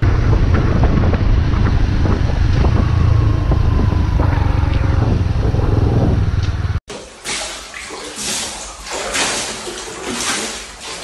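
A moving car's loud, steady low rumble, which cuts off abruptly after about seven seconds. Then water sloshes back and forth in a bathtub in uneven surges, thrown over the rim by earthquake shaking.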